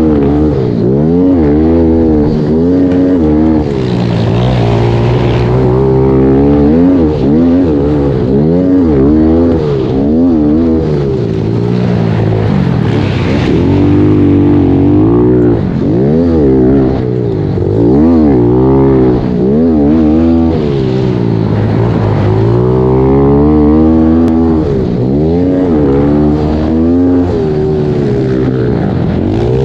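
Pit bike engine revving hard through repeated rises and falls in pitch, every second or two, as the throttle is opened and closed under racing.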